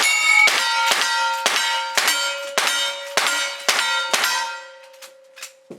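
Rapid gunfire on steel targets: about nine shots, roughly two a second, each followed by the ringing clang of the struck steel plate, then fainter hits near the end.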